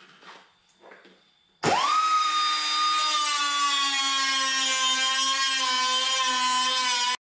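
A cut-off tool starts about a second and a half in, quickly spins up to a steady high whine and cuts into the sheet-metal tail light panel of a 1965 Mustang. Its pitch sags slightly as it cuts, and it stops abruptly near the end.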